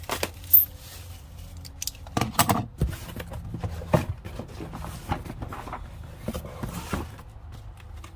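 Handling sounds of a package being opened and its contents taken out: scattered clicks, small knocks and rattles with some rustling, the sharpest click about half a second in.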